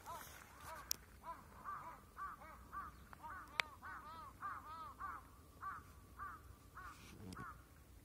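Birds calling over and over, a run of short, arched calls at about two a second. There are two sharp clicks, one about a second in and a louder one midway, and a soft low thump near the end.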